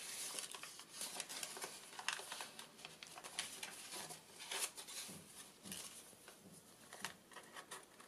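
Paper rustling and soft scraping as a paper tag and the pages of a handmade junk journal are handled, in irregular short bursts.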